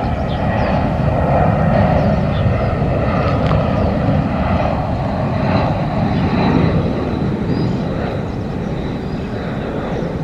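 Airbus A320-family jet airliner on final approach, its engines a steady rumble that swells slightly a couple of seconds in and eases slowly toward the end. A faint high whine is heard in the middle.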